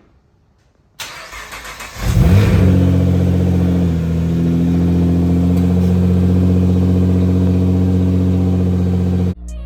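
Nissan R35 GT-R's twin-turbo V6 being remote-started: the starter cranks about a second in, the engine catches at about two seconds with a rev flare that falls away, then it settles into a steady idle. The sound cuts off suddenly near the end.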